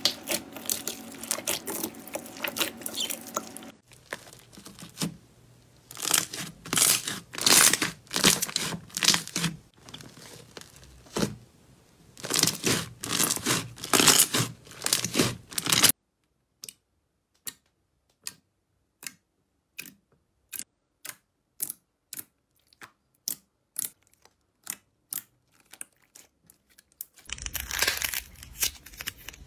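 Hands kneading, pressing and squeezing slime: dense wet crackling and popping. Through the middle stretch the crackling gives way to single sharp pops, about one or two a second, with silence between them. Near the end the dense crackle returns as glossy slime is squeezed.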